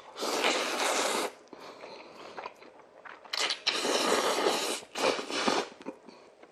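A person slurping Jjapagetti black-bean-sauce noodles: long noisy slurps, the first right at the start and the second about three seconds later, each lasting about a second, with a shorter one just after the second. Quieter chewing comes between them.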